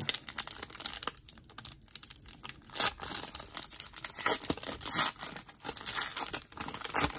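Foil trading-card pack wrapper being torn open and crinkled by hand: a dense run of crackles and rips, with a louder rip about three seconds in.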